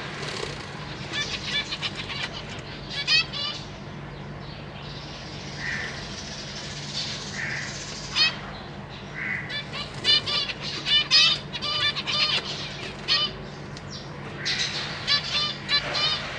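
Zebra finches calling: many short, repeated calls in quick runs, sparse through the middle and busiest in the second half.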